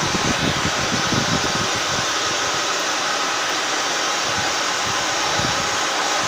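Handheld pet hair dryer blowing steadily on a dog's coat during grooming: an even, unbroken rush of air.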